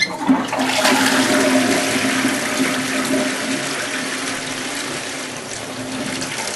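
Toilet being flushed: a click of the flush control, then a loud rush of water into the bowl that slowly tapers off, with a steady tone under the rush. It is a big flush; 'that's a lot of water.'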